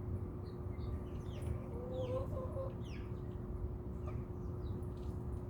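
Backyard chickens clucking softly, with a short low cluck about two seconds in, and small birds chirping in quick high notes. A faint steady hum runs underneath.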